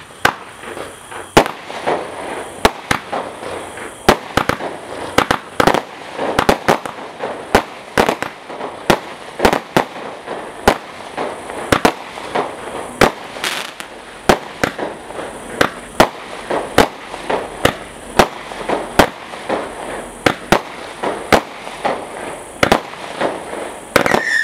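A Fire Star 'Alien Attack' 32-shot barrage firework cake firing its shots in steady succession, about one and a half a second, with the bursts crackling between the shots. The firing stops near the end.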